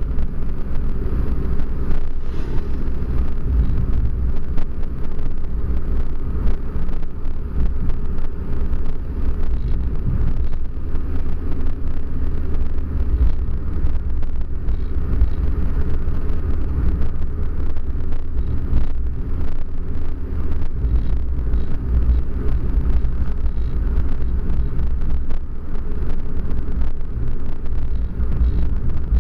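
A car being driven: steady low rumble of the engine and tyres on the road, heard from inside the car.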